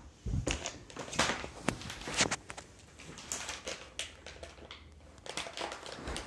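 Soft, irregular rustling and scuffing of a child's hand rubbing a puppy in a plush faux-fur pet bed, with a few low bumps just after the start.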